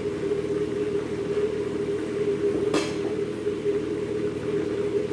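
Steady hum of a running kitchen appliance, with a single sharp click a little under three seconds in.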